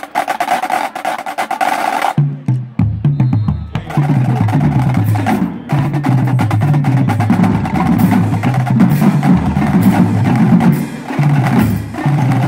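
Marching drumline of snare drums and tuned bass drums playing a cadence: rapid snare strokes, a short break about two seconds in, then the bass drums come in with a low line stepping between pitches and the whole line plays together.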